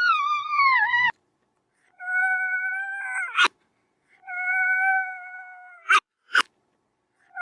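Three long, drawn-out meows, the first falling in pitch and the next two held steady, each cut off by a sharp click, with silence between them.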